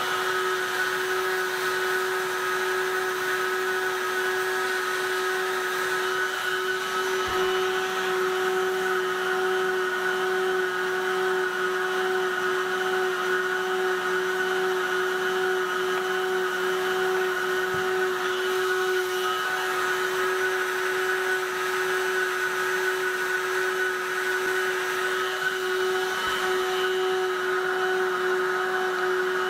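Handheld electric heat gun running steadily, its fan motor giving a constant whine with an airy hiss, while it heats the plastic of a car's intake mesh part.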